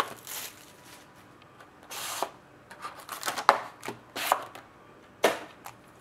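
A cardboard trading-card box being opened and handled on a tabletop, and its foil-wrapped pack lifted out. Scattered taps and knocks and brief rustles of cardboard, with a few sharp knocks in the second half.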